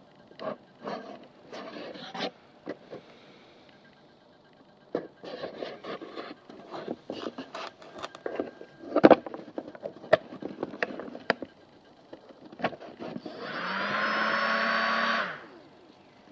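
Handling clicks and knocks as leads are plugged into a ToolkitRC M8 lipo charger, then the charger's small cooling fan whirs up for about two seconds as it powers on and cuts off suddenly.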